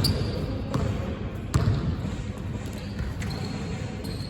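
Basketball bouncing on a hard indoor court several times, each bounce a sharp thud a little under a second apart. A thin high squeak sounds near the start and again near the end.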